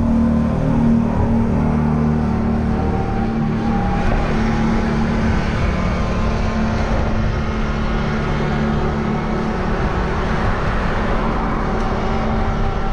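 Wind rumbling on the microphone with road noise from riding a bike. Faint steady tones can be heard above the rumble from a few seconds in.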